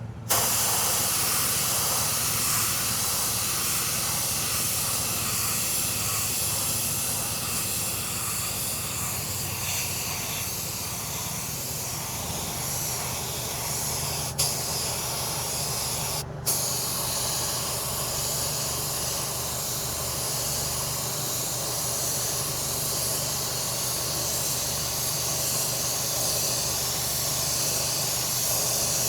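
Silver base-coat paint being sprayed onto a repaired alloy wheel: a steady spray hiss with a click about fourteen seconds in and a brief break about two seconds later.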